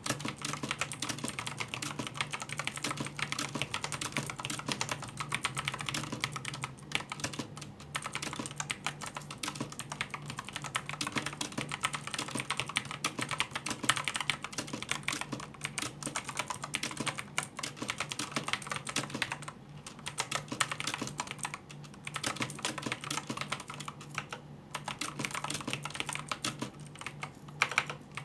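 Continuous fast typing on a Signo KB-769 mechanical keyboard with Kailh blue clicky switches: dense rapid key clicks, with brief pauses about 7, 19 and 24 seconds in. A steady low hum sits underneath.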